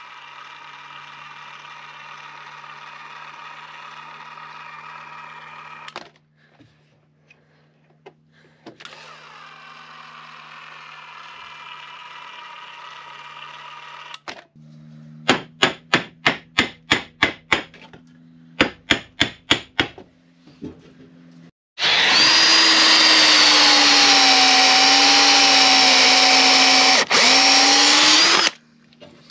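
Power-tool work on a wooden boat's frames. A steady whine runs for a while, then come two runs of rapid knocks at about four a second, then the loudest sound: a power drill running continuously for about six seconds, as used for driving the screws that fix the frame pieces.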